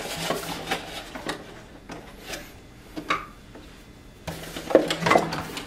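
Door lock parts being worked out of their cardboard packaging: rubbing and scraping with scattered small knocks, busiest about a second before the end.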